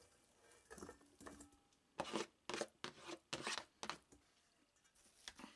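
Faint soft thuds and squishes of boiled potato chunks in a stainless steel bowl, tipped in from a strainer and then pressed with a hand potato masher, with a run of short strokes about two seconds in.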